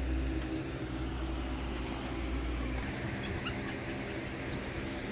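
Puppies play-wrestling with adult dogs, giving a few faint high squeaks about three seconds in, over a steady low hum that stops about three seconds in.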